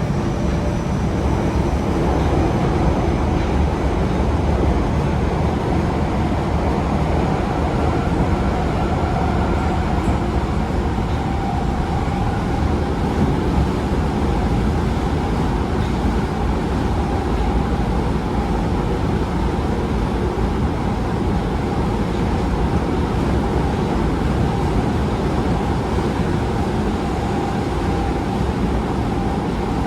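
Osaka Metro 22 series subway train with GTO-thyristor VVVF drive, running steadily: an even rumble of wheels on rail with faint whining tones above it.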